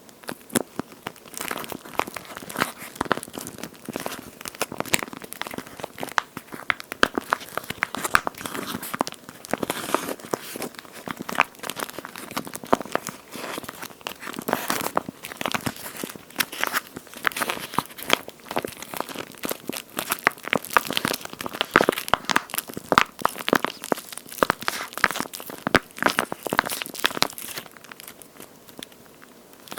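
A jelly-like toast-shaped squishy toy being squeezed and handled by hand, giving a dense run of sticky crackling and crinkling sounds that starts abruptly and tails off near the end.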